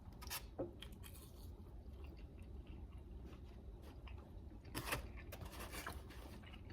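A person eating: biting and chewing food dipped in sauce, scattered wet clicks and crunches, with a denser run of them about five seconds in.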